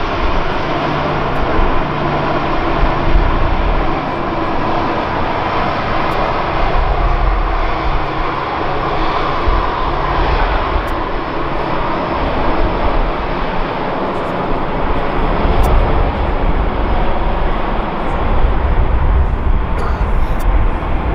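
Jet engines of an Airbus A320 airliner rolling out along the runway after landing: a steady engine noise with a low rumble that swells and fades.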